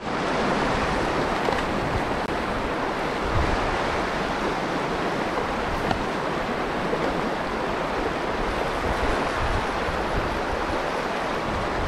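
Fast river water rushing over a shallow, rocky riffle: a steady rush.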